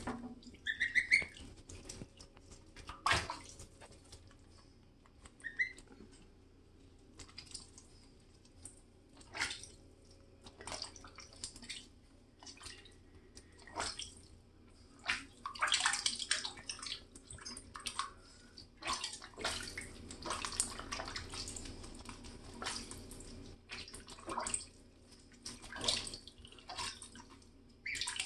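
Goslings dabbling and splashing in shallow bathtub water, in short irregular splashes, with a couple of brief peeps in the first few seconds.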